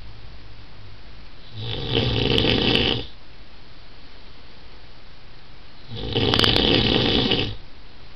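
A man snoring loudly in his sleep: two long snores about four seconds apart, each lasting about a second and a half.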